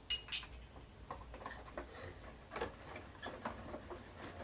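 Small items of a mug set being handled: two sharp, briefly ringing clinks at the start, then scattered light clicks and taps.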